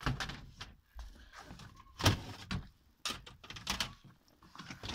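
Plastic hubcaps knocking and rattling as they are handled and put away into storage, with several sharp knocks, the loudest about two seconds in.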